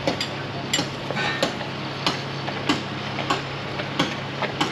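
A mixing stick tapping and scraping against the sides of a plastic mixing cup as epoxy thickened with microfiber filler is stirred, a sharp click about every two-thirds of a second.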